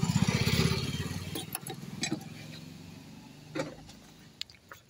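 A motorcycle passing close by, its engine loudest at the start and fading away over about three seconds. A few light knocks sound near the microphone.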